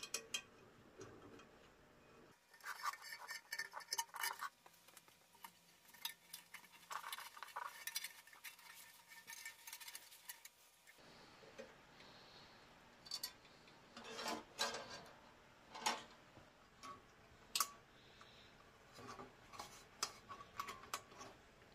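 Light clicks, taps and rustles of hands handling wires, a small circuit board and the lamp base while wiring it, in scattered clusters with short pauses between.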